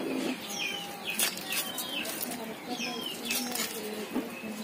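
Scissors snipping through a catla fish head's bones, a few sharp clicks about a second in and again past the three-second mark, with birds chirping in short falling notes throughout.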